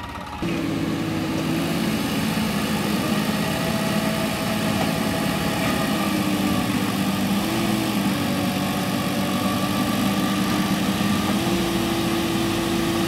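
Eicher 650 tractor's diesel engine running steadily under load as the tractor works forward through loose soil with its trailer hitched behind. The engine comes up sharply about half a second in, then holds steady with slight dips and rises in pitch.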